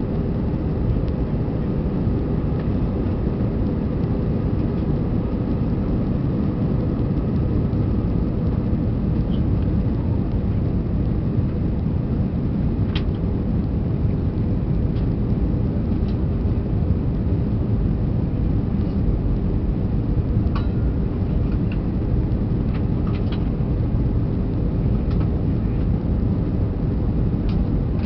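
Steady low cabin rumble of an Airbus A320 in flight on approach, the drone of its engines and the rush of air heard from a seat beside the wing engine, with a few faint clicks.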